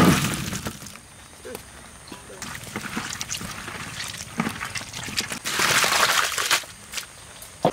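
Water being handled in a cooking pot or basin: a loud splash right at the start, small clicks and knocks, and a second, longer pour or splash about five and a half seconds in.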